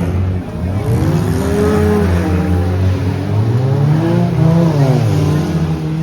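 Demolition derby car engines revving, their pitch rising and falling again and again.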